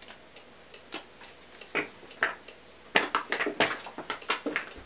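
A deck of playing cards fumbled and spilling: a couple of card-handling noises, then a quick flurry of snapping, slapping clicks as the cards scatter onto the floor. A clock ticks faintly throughout.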